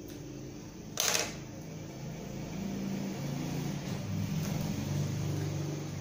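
A sharp clatter about a second in, as scissors are set down on a wooden workbench, over a low droning hum that grows louder in the second half.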